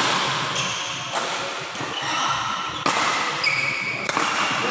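Badminton racket strings hitting a shuttlecock during a fast rally: four sharp hits a second or more apart, the last on a jumping overhead smash, echoing in a large indoor hall.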